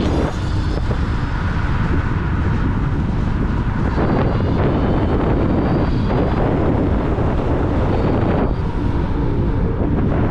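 Heavy wind rumble on the microphone while riding a Dualtron X2 Up electric scooter, with a faint high whine that comes and goes.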